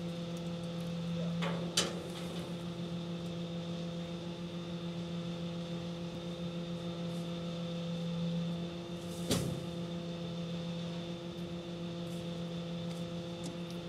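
Rear-loading garbage truck idling with a steady hum. Two sharp knocks cut through it, about two seconds in and again about nine seconds in.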